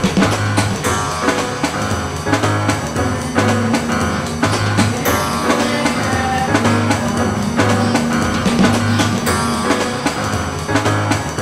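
Music with a steady drum beat and guitar, with no singing.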